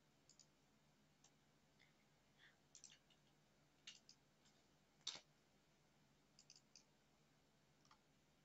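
Near silence with faint, irregularly spaced computer mouse clicks, about a dozen, the loudest about five seconds in, over a faint steady low hum.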